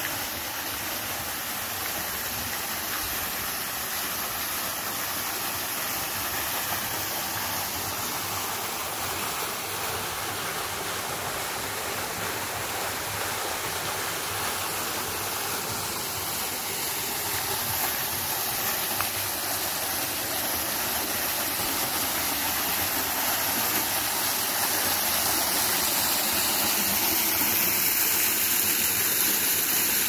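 Small waterfall with a low off-season flow: a thin stream of water pouring down a rock face and splashing, a steady rushing that grows somewhat louder over the last ten seconds.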